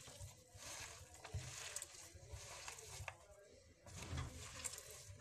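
Hands kneading and squeezing a raw minced-meat filling with onion, chili and blended tomato in a bowl: faint, repeated squelching strokes.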